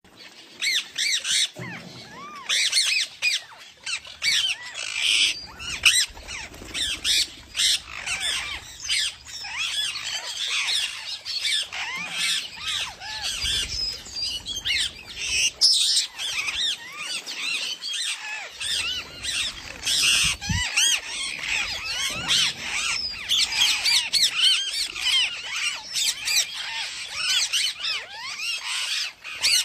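Parrots chirping: many short, overlapping, rising-and-falling high chirps and calls, busy and continuous.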